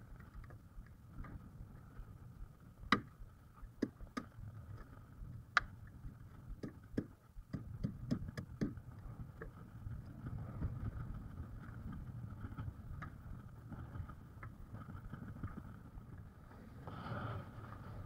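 Wind rumbling on the microphone in strong wind, swelling near the end, with a scattering of sharp knocks and clicks in the first half.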